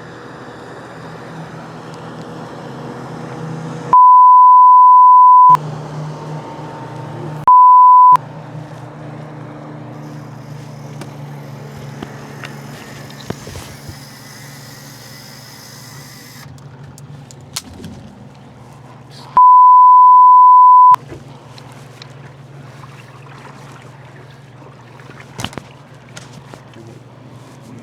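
Three loud, steady censor bleeps at one pitch: the first about four seconds in, a short one about seven and a half seconds in, and a third near twenty seconds. They cut out all other sound while they last. Between them a boat's outboard motor runs with a steady drone.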